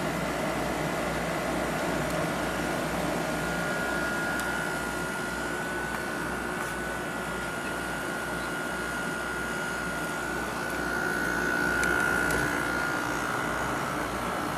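GE 6,050 BTU window air conditioner running: steady rush of its fan with the hum of its rotary compressor, blowing cold air. A thin steady whine comes in about four seconds in and holds.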